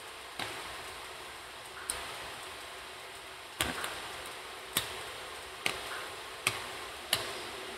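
Plastic spoon clicking against the rim and inside of a glass jar as its thick contents are scooped out: a series of sharp, separate clicks about once a second, coming a little faster near the end.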